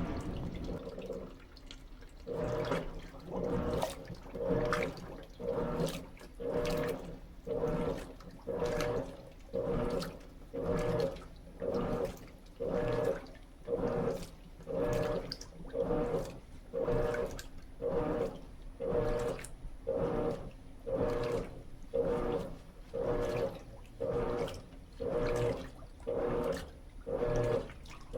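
Electrolux Turbo Capacidade LT13B top-load washing machine agitating its load in water. Starting about two seconds in, there is a rhythmic slosh, a little under one surge a second.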